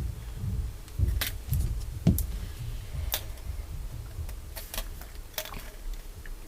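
Small irregular plastic clicks and taps as keyboard stabilizers are handled and fitted into the keyboard, over a low rumble of handling noise.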